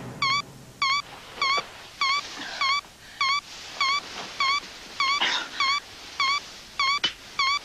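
Bedside telephone's electronic ringer chirping: short identical warbling beeps, a little over half a second apart, with a rustle of bedclothes about five seconds in as the sleeper stirs.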